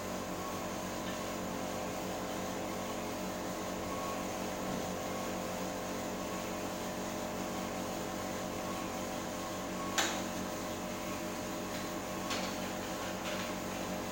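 Coffee roaster running with a steady motor and fan hum, with one sharp click about ten seconds in and two fainter clicks near the end.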